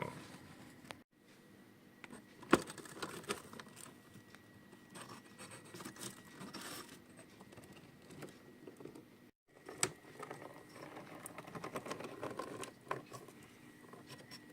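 Small toy vehicles handled on a hard surface: light scratching and rustling with scattered clicks, the sharpest about two and a half seconds in.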